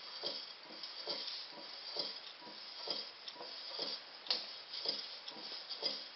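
Small homemade gamma Stirling engine with an elastic-membrane piston running, ticking evenly about two times a second as its flywheel turns, with one sharper click about four seconds in.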